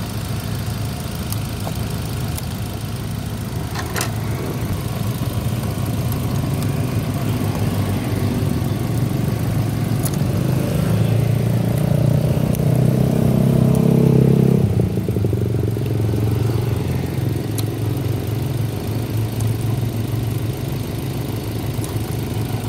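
Kia petrol car engine idling while its fuel pump fuse is being pulled to cut the fuel supply. The idle swells louder for a few seconds midway, drops back suddenly, then runs on steadily.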